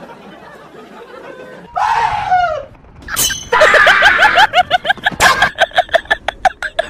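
Comedy sound effects: a short cry falling in pitch, a crash about a second later, then a fast run of high, sped-up voice-like yelps at about four or five a second.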